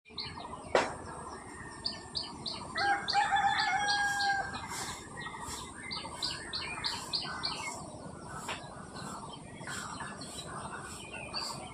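Birds chirping in quick runs of short notes, with a rooster crowing once about three seconds in. A single sharp click comes just under a second in.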